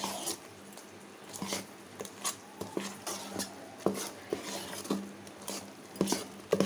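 A hand stirring thick, coarse idli batter in a pot, with irregular soft knocks and scrapes against the pot's sides.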